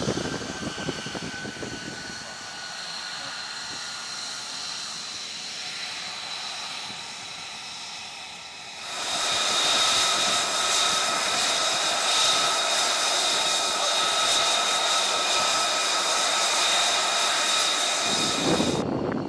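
An F-35B Lightning II's F135 jet engine running at taxi idle: a steady whine made of several high, even tones, one of them sinking slightly in pitch early on. About nine seconds in it becomes abruptly louder and brighter, then stops suddenly just before the end.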